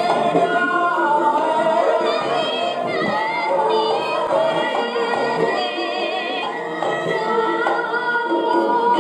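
Javanese gamelan music for the Gambyong dance: ringing bronze metallophones and gongs with a female voice singing over them.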